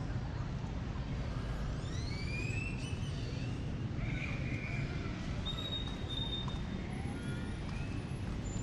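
Street ambience with a steady low rumble of traffic. About two to three seconds in come a few high, rising whistled calls, with thinner high whistles later.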